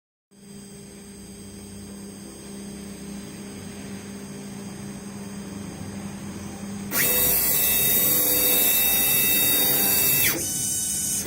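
CNC engraving machine's spindle starting up and running with a steady whine. About seven seconds in, a louder, harsher cutting sound begins as the bit engraves a metal pet ID tag, then drops back about three seconds later.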